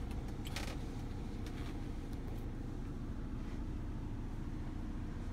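Steady low rumble inside a motorhome cab with the vehicle's engine running. A brief rustle comes about half a second in.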